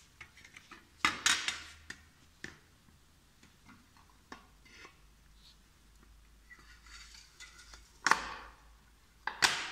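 Aluminium snap frame and LED light panel knocking and clicking against each other and the table as they are handled and fitted together. Scattered light clicks, with louder clattering knocks about a second in and twice near the end.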